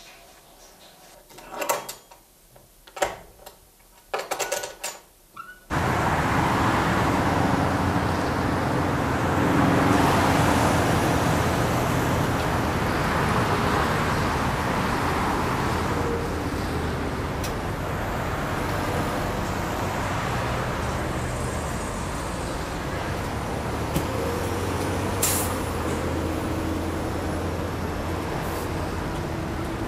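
Steady city street traffic noise, a continuous rush with a low engine hum, starting abruptly about six seconds in after a few short, soft sounds in a quiet small room.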